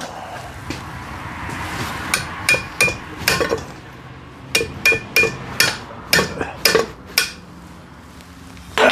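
Hammer striking a stuck fitting at a rear brake caliper, about a dozen sharp metallic blows with a short ring, to shock it loose.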